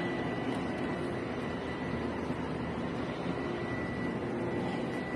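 Espresso machine running steadily while a shot pours, a continuous mechanical hum with a faint steady high tone.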